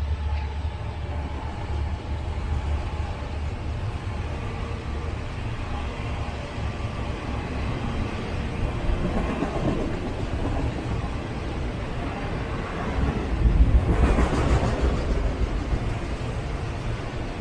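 Union Pacific freight train rolling past with a steady low rumble, and a louder rushing swell about fourteen seconds in.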